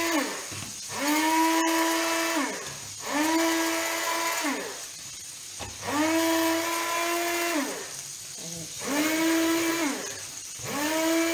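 Electric hand blender run in repeated short pulses, each spinning up to a steady pitch, holding for a second or so, then winding down. It is puréeing artichoke stem with cooking water into a cream.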